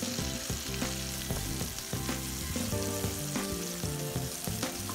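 Flour-and-cornmeal battered fish frying in hot grease in a pan: a steady sizzle with frequent small crackling pops.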